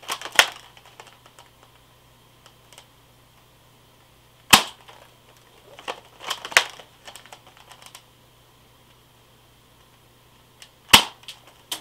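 Spring-powered JLS SM-8 (XM8-style) airsoft rifle handled and fired with a BB: sharp plastic clacks and clicks, with the two loudest snaps about four seconds in and near the end.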